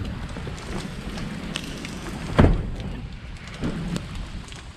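Steady rain falling during a passing thunderstorm, with one sharp thump about halfway through.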